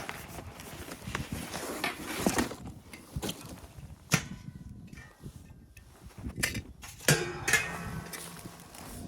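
Irregular knocks, scuffs and scrapes, with a sharp click about four seconds in and a longer scraping rattle near the end.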